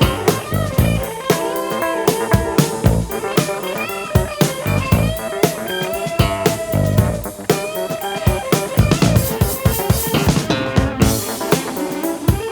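Music with guitar and a steady drum beat, played back from a vinyl record through a Grado Red phono cartridge.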